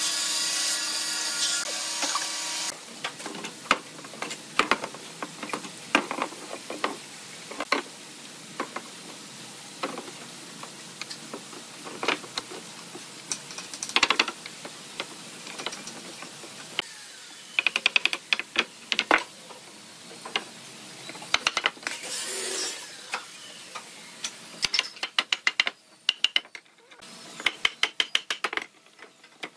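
A power tool whines steadily for the first few seconds and then stops. After that come irregular clicks, taps and knocks of hand work with woodworking tools, some in quick clusters.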